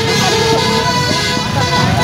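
Sanjaya Trans bus's multi-tone 'basuri' telolet horn playing a tune of held notes that change every half second or so, over the low rumble of traffic.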